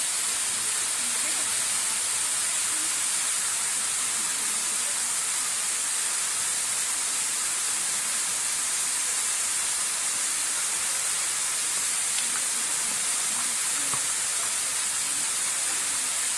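Waterfall running: a steady, unbroken hiss of falling water.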